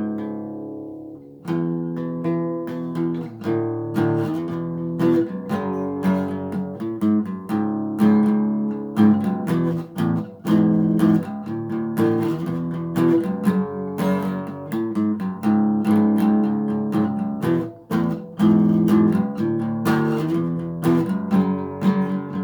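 A Fender FA-125 laminate dreadnought acoustic guitar played in chords, with repeated strums and picked strokes, the strings ringing between strokes. Its tone is full in the low end, which the owner finds too bassy.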